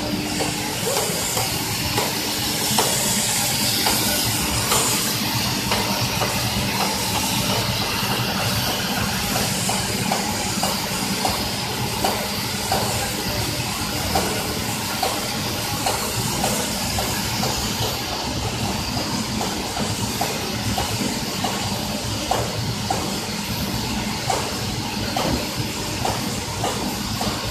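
Water hissing and splashing in the cooling trough of a horizontal continuous casting line, where a hose pours water over the freshly cast copper strip. Under it is the steady running noise of the casting machinery, with frequent small clicks.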